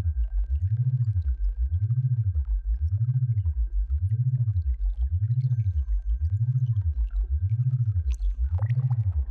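Synthesized sound-therapy drone: a low tone that glides up and down in pitch about once a second in an even repeating sweep, over a faint steady high tone.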